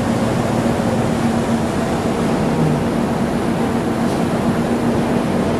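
Steady hum of a standing passenger train's machinery: one low drone under an even rushing noise.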